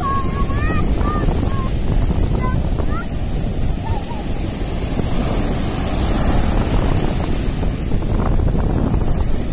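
Surf breaking on a sandy beach, mixed with steady wind buffeting the microphone.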